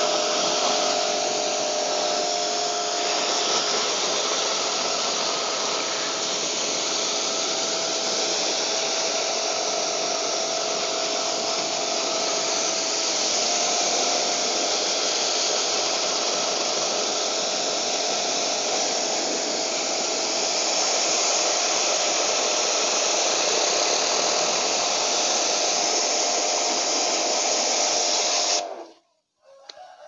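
Pressure washer running steadily, its motor whine mixed with the hiss of water spraying onto the fins of an air conditioner's outdoor unit to wash out the dirt. It cuts off suddenly near the end.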